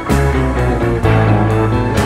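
Background rock music with guitar over a steady bass.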